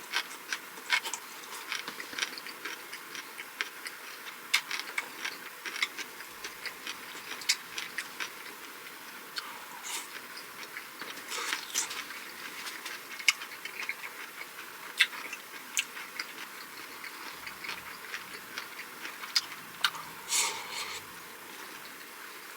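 Close-miked eating sounds: a person chewing Korean pan-fried jeon and seasoned vegetable side dishes with rice, with many sharp, irregular mouth clicks and smacks.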